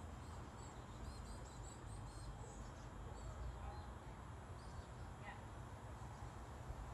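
Backyard ambience: small birds chirping, with short high calls scattered throughout, over a low steady rumble.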